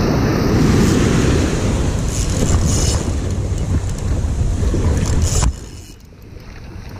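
Wind buffeting the camera microphone over breaking ocean surf, a loud rushing roar that drops off sharply about five and a half seconds in.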